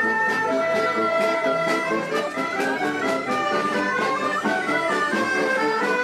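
Accordion playing a traditional folk tune with a band, a steady run of quick notes over held chords.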